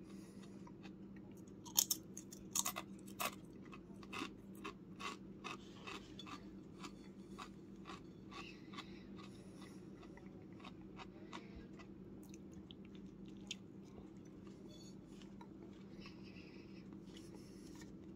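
A person biting into and chewing a turkey sandwich close to the microphone: a few loud crunches about two seconds in, then softer, irregular chewing clicks, over a steady low hum.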